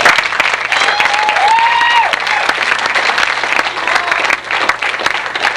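An audience clapping in applause for the presented graduating class, dense and loud. A couple of high calls rise and fall over the clapping in the first two seconds.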